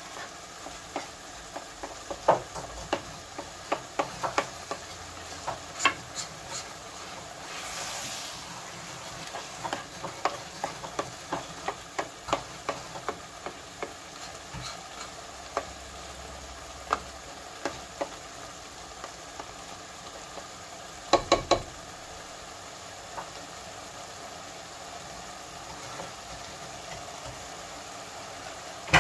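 Plastic spoon stirring chicken mince cooking in tomato sauce in a nonstick pot, scraping and knocking against the pot in irregular clicks over a steady low sizzle from the pan. About two-thirds through come three quick, louder knocks.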